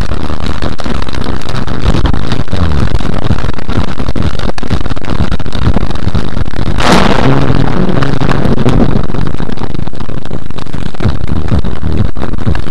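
Loud, distorted rushing noise from a car dashcam's microphone while driving in rain, with one sudden sharp crack about seven seconds in.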